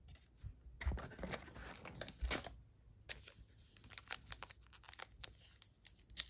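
Foil Yu-Gi-Oh booster pack wrapper crinkling as it is handled, then pinched and torn open by hand near the end.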